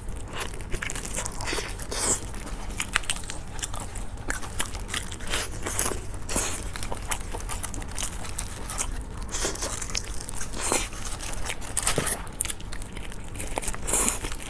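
Close-miked eating of a whole spicy steamed chicken: pieces are torn apart with gloved hands, bitten and chewed, giving many short, irregular clicks throughout.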